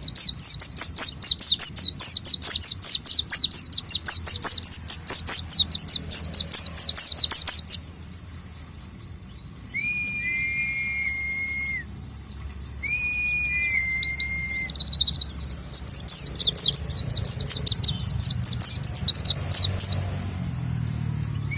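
White-eye (pleci) singing a fast, high, twittering song in two long runs. Between the runs come two separate lower two-note whistles, each stepping down in pitch.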